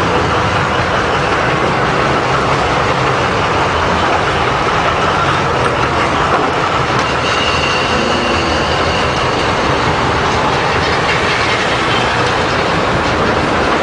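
Military vehicle convoy: a loud, steady rumble of engines with rattling, heard from on board a moving truck. A faint high squeal comes in around the middle.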